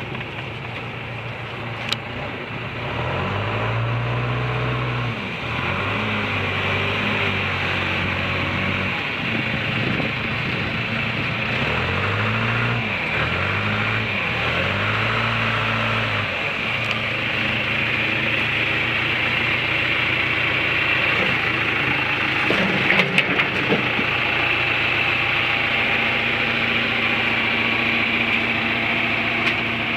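John Deere 410B backhoe's diesel engine running, its speed rising and falling several times in the first half and then holding steady. A few short knocks come a little past the middle.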